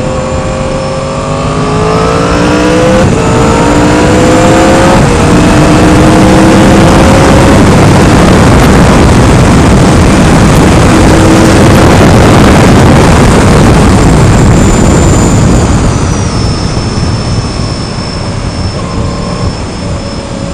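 2016 Yamaha R1's crossplane inline-four, fitted with a cheap aftermarket slip-on exhaust, accelerating hard: the exhaust note rises and drops back at upshifts about three and five seconds in. It then holds loud and steady at speed and eases off near the end.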